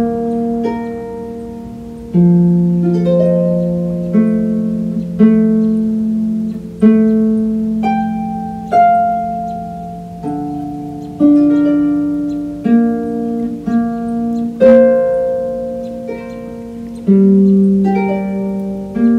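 Solo pedal harp playing a slow, gentle piece: single plucked notes about once a second, each ringing and fading over held lower notes.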